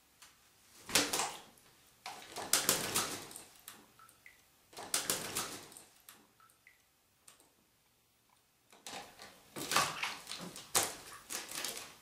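African grey parrot splashing in a sink of water in four bouts, dunking head-first and belly-flopping, with quieter pauses between.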